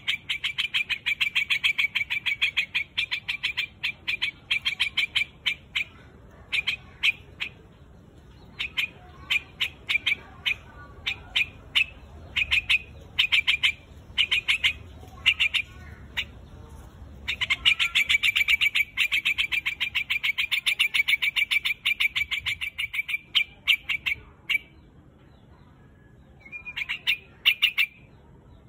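White-headed quạch mốc bird giving its flock-calling chatter: long runs of fast, sharp repeated notes, broken by shorter bursts.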